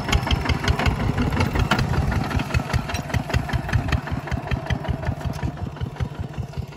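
Kubota ZT140 walk-behind tractor's single-cylinder diesel engine running under load while plowing, with a fast, even beat. It grows fainter near the end as it moves away.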